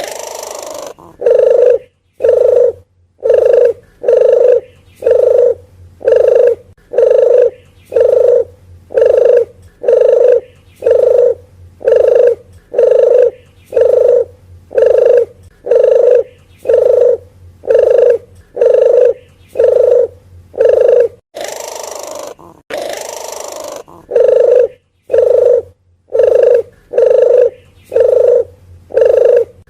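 A puter geni dove (the reddish colour form of the domestic collared dove) cooing over and over at about one call a second. The steady, low coos stop briefly near the end for a couple of seconds of hissing noise.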